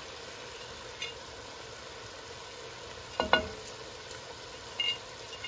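Beef chunks sizzling gently in an enamelled cast-iron pot as whole spices are added. A sharp knock on the pot with a brief ring a little past three seconds in, and lighter clicks near the start and near the end.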